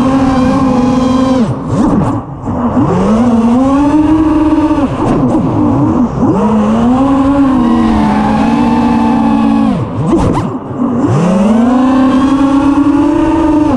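Eachine Wizard FPV racing quadcopter's brushless motors and propellers whining, recorded on its onboard GoPro. The pitch swoops up and down with the throttle. Three times the throttle is chopped and the whine falls away for about a second, then rises again.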